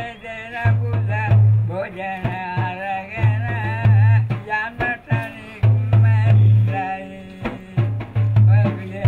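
A voice chanting a traditional ritual verse in a wavering melody over drumming, with sharp drum strokes and a deep tone that swells about every two and a half seconds.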